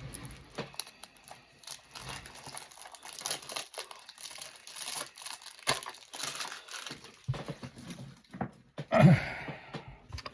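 Plastic packaging crinkling and tearing as items are unwrapped and handled, with scattered small clicks and rustles, and one brief louder sound about nine seconds in.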